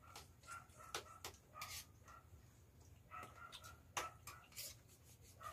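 Faint clinks and scrapes of spoons and hands on plates during a meal: a few sharp taps and short scrapes. Faint short squeaks are heard now and then.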